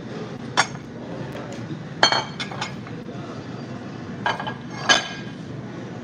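Dishes clinking as they are moved and set down on the table: sharp clinks with a brief ring, one early, a quick cluster about two seconds in, and two more near five seconds, over steady restaurant background noise.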